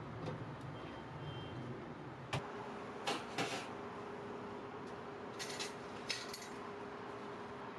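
A microwave oven door being handled: sharp latch clicks and knocks about two and a half seconds in and again around three seconds, then a few lighter clicks near six seconds. A faint steady hum sets in with the first click.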